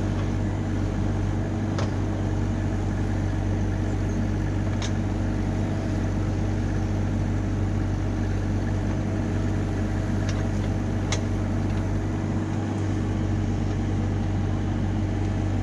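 Compact excavator's diesel engine running steadily, with a few brief sharp clicks or knocks from the machine at work.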